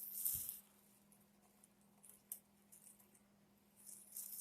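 Faint scratching of a long metal pin picked in between the feed dog teeth of an old Singer sewing machine, scraping out dirt. It comes in two short spells, at the start and near the end, with a light tick in between.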